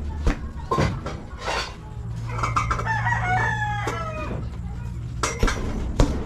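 Boxing-gloved punches landing on a hanging heavy bag, several single thuds with the two hardest near the end. A rooster crows once in the middle, for about two seconds.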